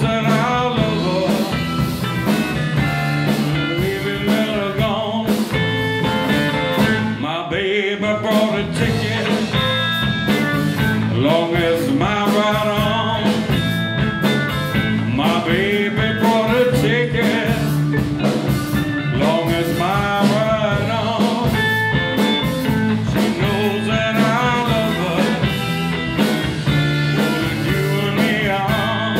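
Live blues band playing: electric guitars, bass and drums, with a man singing over them.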